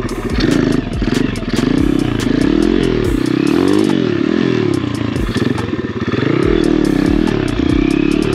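Apollo RFZ 125cc pit bike's single-cylinder four-stroke engine revving up and dropping back again and again, about once a second, as the throttle is blipped to pop the front wheel up into wheelies. Short clicks and clatter run through it.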